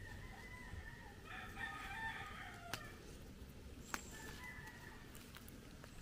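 Rooster crowing faintly a few times, the longest and fullest crow about a second and a half in. A couple of sharp clicks come near the middle.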